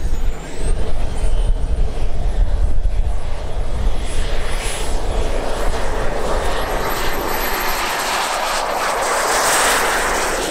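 Turbine of a large RC L-39 Albatros model jet whining high as it spools up on the takeoff roll. The whine steps up in pitch about a second in and again after six seconds, and a rushing jet noise builds to its loudest near the end as the model accelerates past. Wind rumbles on the microphone for the first part.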